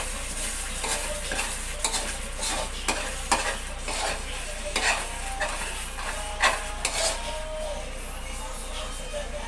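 Metal spatula stirring taro leaves in coconut milk in an aluminium wok, scraping and knocking against the pan in irregular strokes, over a steady sizzle from the simmering pan.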